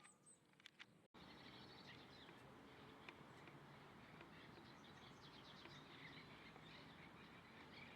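Small birds chirping and twittering, many short high calls overlapping. About a second in, the sound cuts abruptly to a steadier background hiss with denser chirping, as if from a flock.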